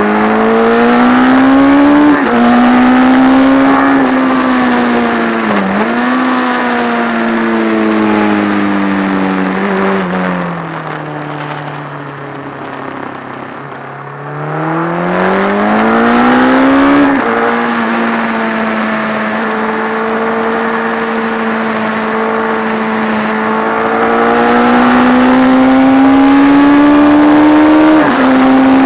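Alf's P&M Kawasaki classic race bike's inline-four engine, heard from on board, pulling hard with rising revs and sharp drops at upshifts about two seconds in and near the end. Around the middle the throttle closes: the revs sink and the engine goes quieter for a few seconds, then it pulls up through the gears again.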